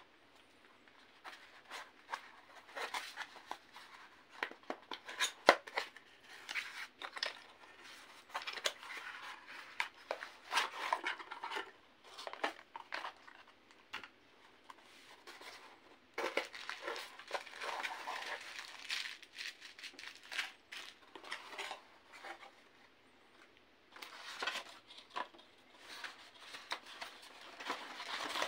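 Cardboard and styrofoam packaging being handled: a small cardboard box lifted out and opened, and its contents taken out, with irregular rustling, scraping and light taps and clicks in bursts, with a few short pauses.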